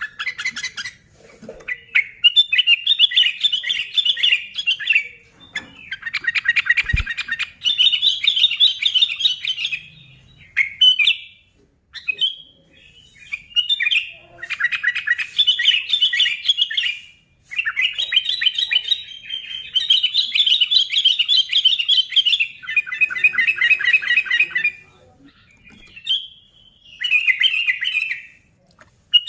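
Sooty-headed bulbul (kutilang) chattering loudly in rapid bursts of one to three seconds, separated by short pauses.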